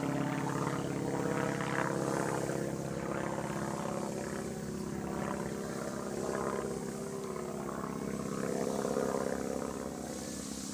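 Small electric RC foam plane's motor and propeller buzzing steadily under power as it hovers nose-up. The level swells and eases a little with the throttle.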